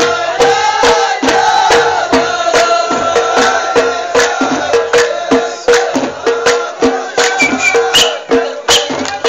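Ahwash, Amazigh collective song: a chorus of men chanting in unison over sharp, even hand-clap beats, about three a second.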